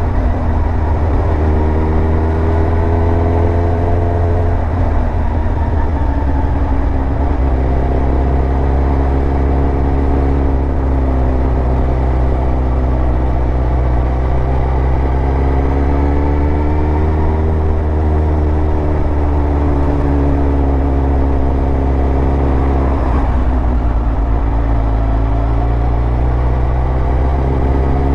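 2002 Suzuki GSX-R1000 K2's inline-four engine running under way, its pitch rising and falling gently several times with the throttle, over a steady low rumble.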